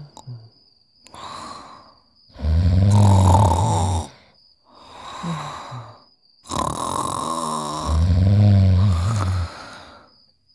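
Cartoon snoring: two loud, low, rumbling snores about four seconds apart, with quieter breathy exhales between them.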